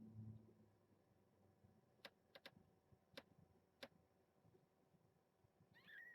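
Near silence broken by five faint, sharp clicks in the middle, then a newborn kitten's short, high, squeaky mew right at the end.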